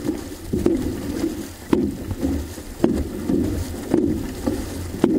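Six-person outrigger canoe (OC-6) crew paddling in unison: five strokes, about one a second, each a sharp click as the blades catch, followed by a short splash and rush of water along the hull.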